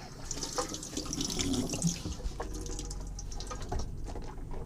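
Water running from a boat's sink tap and splashing into the basin, strongest for the first two seconds or so, then lighter, with a few small knocks.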